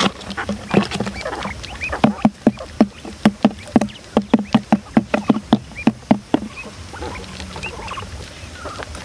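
Rapid irregular tapping, about three or four sharp knocks a second, that stops about six and a half seconds in, with a few short high chirps from quail.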